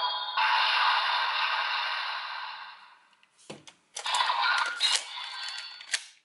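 Electronic sound effect from the DX Circle Arms toy's speaker, set to Sky Arrow mode with the G.U.T.S. Hyper Key inserted, fading out over about three seconds. After a short gap comes a click, then about two seconds of plastic clattering and rattling as the toy is handled.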